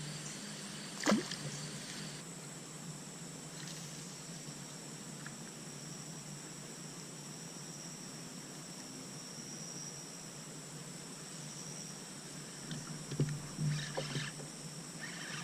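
Steady outdoor background with a high, even insect trill. There is one sharp knock about a second in and a few short knocks and rustles near the end.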